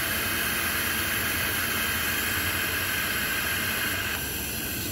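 Steady hiss of an argon-shielded welding torch on a hollow pipe welding machine as it seam-welds a metal tube, over a low machine hum. The hiss drops away about four seconds in.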